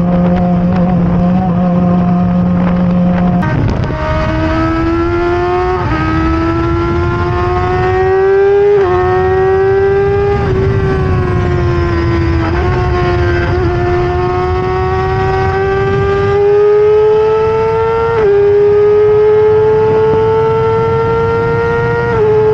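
The Stohr WF1's BMW S1000RR inline-four motorcycle engine holds a steady note for about three and a half seconds, then pulls hard, its pitch climbing. The pitch drops sharply at upshifts about six and nine seconds in, falls off briefly past the middle as it eases off, then climbs again with two more upshifts near the end.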